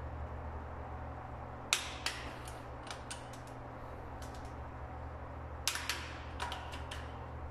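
Click-type torque wrench tightening the bolts on a high-voltage cable termination's metal top cap: sharp metallic clicks, the wrench breaking at its set torque. Two loud clicks come about two seconds in, a few faint ones around three seconds, and a cluster near six seconds, over a steady low hum.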